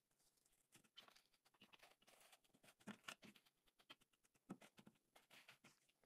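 Faint, scattered crinkling and rustling of plastic cling film as it is pressed down onto the surface of ganache in a bowl and tucked round the rim.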